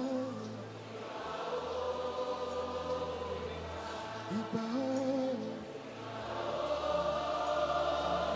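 A choir and congregation sing a slow, chant-like praise refrain over sustained instrumental backing, with long held notes.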